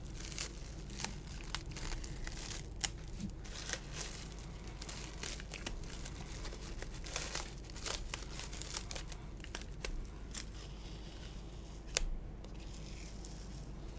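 Masking tape and clear plastic wrap being peeled off a painted plastic model aircraft by hand: a steady run of irregular crinkles and tearing crackles, with one sharper crackle about twelve seconds in.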